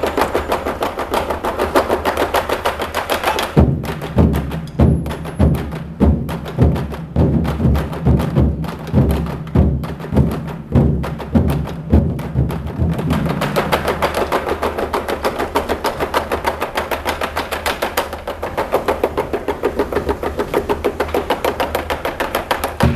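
Ensemble of large Chinese barrel drums struck with sticks: fast, dense drumming, then about four seconds in a run of heavy, deep strikes about two a second, switching back to fast, dense drumming about thirteen seconds in.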